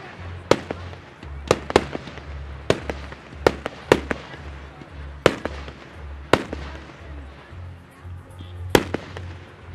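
Aerial firework shells bursting overhead: about nine sharp bangs at irregular intervals, roughly a second apart, two of them in quick succession twice.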